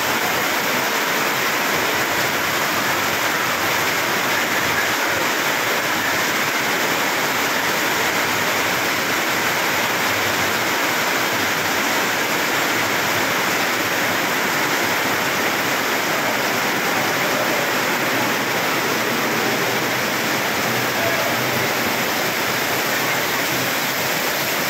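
Heavy rain falling hard on a corrugated sheet-metal roof and pouring off its edges, a steady, unbroken rush of water.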